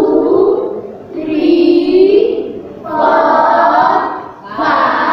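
A class of children counting aloud in unison in a drawn-out chant, one long number about every second and a half, four in all.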